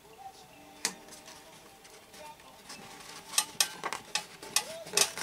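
Silver foil tape crinkling and crackling as fingers press and smooth it onto a papier-mâché form. A single sharp crackle about a second in, then a quick run of louder crackles in the second half.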